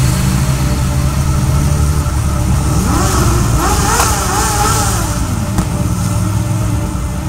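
Motorcycle engines running, with one engine revving up and falling back between about three and five seconds in.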